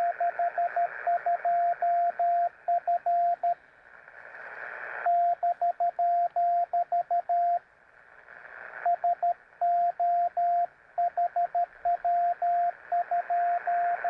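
Morse code on an amateur radio transceiver: a single steady tone keyed in dots and dashes over band hiss, from an exchange of CW contacts. There are two pauses, about four and eight seconds in, where the keying stops and the hiss swells up.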